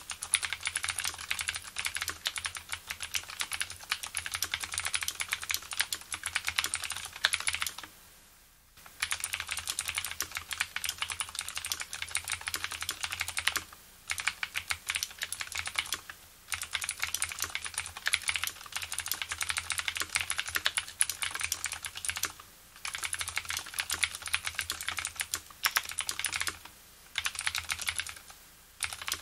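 Fast typing on a Leopold FC750R keyboard with clicky Cherry MX Blue switches whose springs have been lubricated: a dense run of keystroke clicks. It stops briefly several times, the longest pause coming about eight seconds in.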